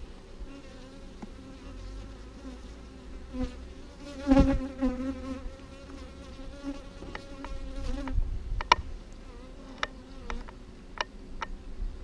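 Honey bees buzzing over an opened hive, the colony agitated and growing louder at the disturbance. About four seconds in, one bee passes close by with a loud, wavering buzz. A few sharp ticks come in the last few seconds.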